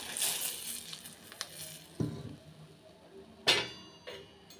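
Well-heated cooking oil poured onto flour in a steel bowl, hissing and sizzling for the first couple of seconds as it hits the dry flour. Two sharp knocks follow, a soft one about two seconds in and a louder one a little later.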